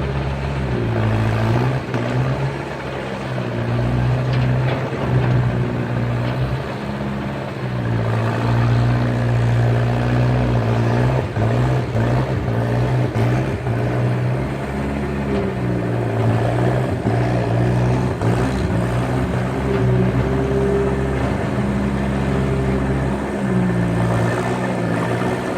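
Skid steer engine running under load, its pitch dipping and recovering a few times in the first several seconds, then holding steadier, with faint clatter throughout.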